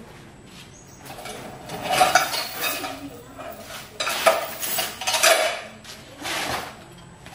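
Rummaging through a woven basket of rope and hard odds and ends: rustling with clinks and clatters, in several spells that are loudest about two seconds in and again between four and five and a half seconds.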